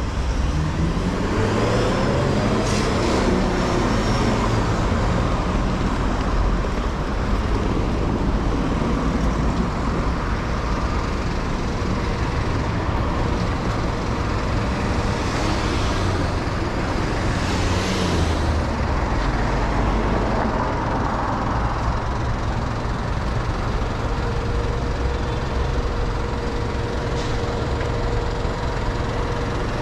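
Busy street traffic: motor vehicles running and passing, one accelerating with a rising engine note in the first couple of seconds.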